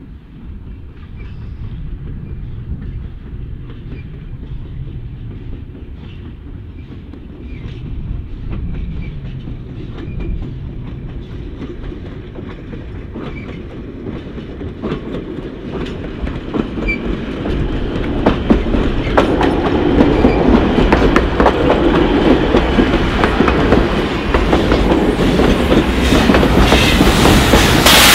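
Steam-hauled train of Nevada Northern locomotive No. 81 drawing closer: a low rumble with wheels clicking over the rail joints, growing steadily louder as it nears and passes close.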